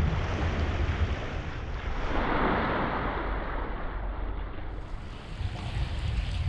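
Wind buffeting the microphone over small waves washing against a rocky shoreline, with a louder rush of water noise about two seconds in.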